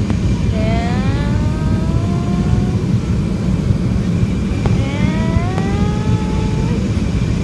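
Cabin noise of a Boeing 737 jet airliner on final approach, heard from a window seat beside the engine: a steady loud rumble, with a rising whine that comes twice, about half a second in and again near five seconds.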